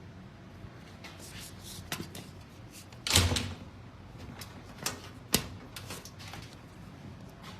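Scattered clicks and knocks of parts and tools being handled while a direct drive washing machine is taken apart. The loudest is a short clatter about three seconds in, with two sharp clicks near the fifth second.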